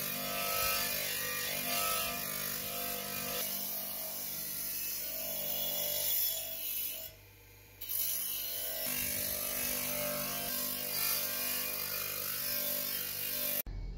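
Bench grinder motor running with a wire wheel scrubbing rust off a steel shovel blade: a steady motor hum under a dense scratchy hiss. The sound drops out briefly about seven seconds in, then resumes, and cuts off suddenly just before the end.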